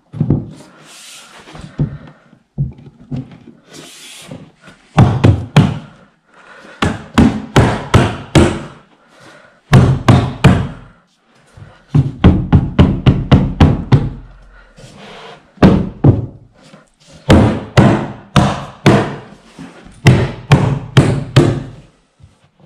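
Repeated blows of a hand on an IKEA Kallax shelving unit's panel, knocking it down onto its wooden dowels. The knocks come in quick runs of several a second, with short pauses between runs.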